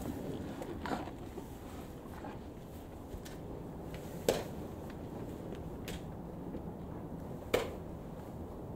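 Quiet ambience at a cattle hay feeder, with a few sharp knocks; the two loudest come about four and seven and a half seconds in.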